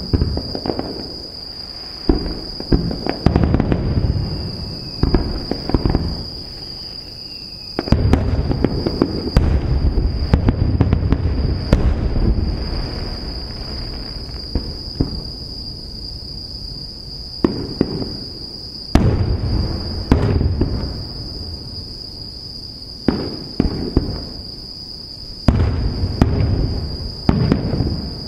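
Aerial firework shells bursting: a run of sharp booms, thickening into a rapid, dense volley of overlapping bangs and crackle about a third of the way in, then scattered single bursts and short clusters.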